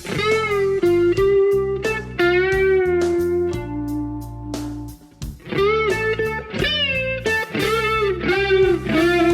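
Electric guitar played through a chorus pedal: clean sustained notes and double-stops whose pitch wavers gently, with a short break in the playing about five seconds in.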